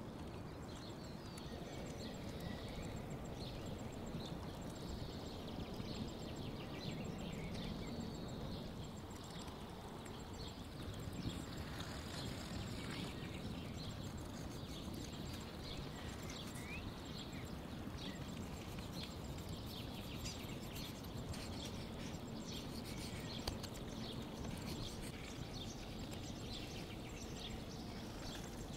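Outdoor ambience: a steady rush of background noise with the frequent small pops of a campfire crackling, and a few faint bird chirps.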